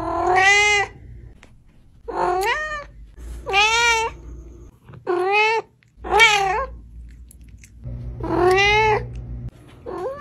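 Domestic cat meowing over and over: about seven drawn-out meows in ten seconds, each rising then falling in pitch, the last cut off at the end.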